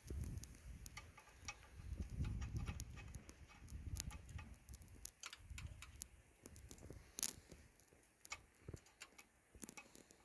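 Irregular light clicks and taps, with low rubbing and handling noise, from hands and tools working at the fuel pump in a truck's engine bay.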